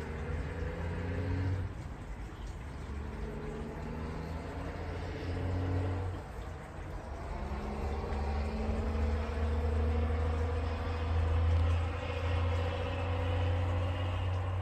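A motor vehicle's engine running unseen in the distance: a deep steady hum with pitched lines above it that climb slowly over the last several seconds.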